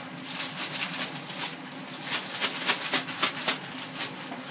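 Plastic bag rustling rapidly and irregularly as chicken wings are shaken inside it with seasoned flour to coat them.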